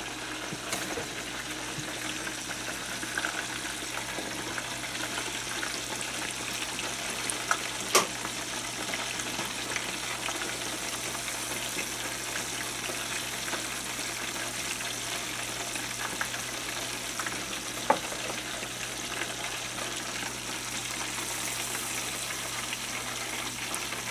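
Chicken pieces deep-frying in hot oil in an open aluminium pressure-cooker pot, a steady sizzle throughout, with two sharp clicks, about a third of the way in and again about three quarters in.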